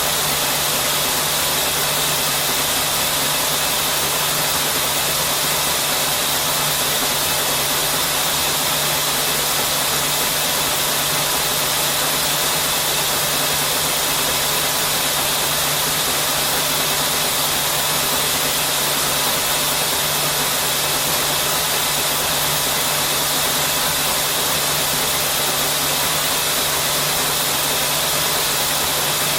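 Textile knitting machine running steadily: a constant, even hiss-like mechanical noise over a steady low hum, with no change in pace or level.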